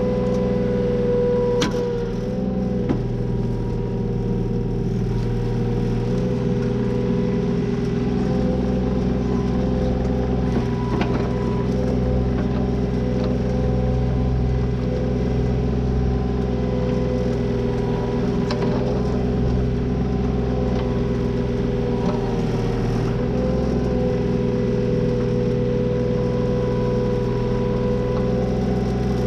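Takeuchi TL025 compact excavator's engine running steadily with a steady whine while the machine works at pulling fence posts, with a few sharp cracks.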